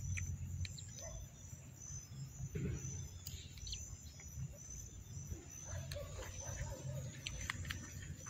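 Crickets chirping in a high, evenly pulsing trill, over a steady low rumble, with a few light clicks.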